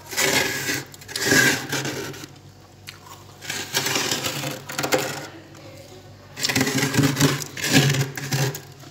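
Fingers scraping thick freezer frost off the compartment walls, a crisp rough scratching in four separate strokes of a second or two each, over a low steady hum.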